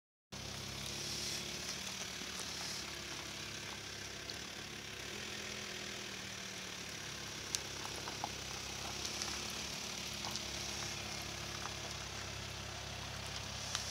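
A steady low mechanical hum with an even background hiss and a few faint clicks, like a motor running at idle.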